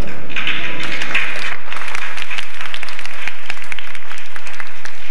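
Audience applauding, dense at first and then thinning to scattered claps.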